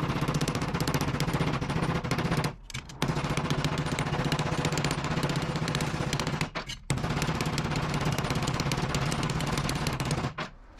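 Ball-peen hammer striking an aluminium strip on a metal block in rapid, run-together blows, with two brief pauses. It is hammering creases into the strip to bend it into a curve.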